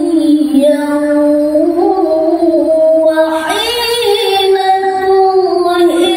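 A man reciting the Quran in melodic tilawah style, in a high register: long held notes that bend slowly between pitches, stepping up to a higher note about halfway through and dipping just before the end.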